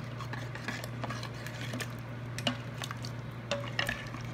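A steel ladle stirring a thin lentil-and-vegetable stew in a stainless steel Instant Pot inner pot. Light scraping and small clinks of the ladle against the pot, with a few sharper knocks in the second half.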